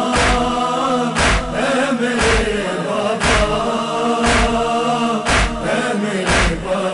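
A chorus of voices chanting a drawn-out, wordless drone, over a deep thump about once a second. This is the opening of a matami noha, with the thumps keeping the chest-beating (matam) beat.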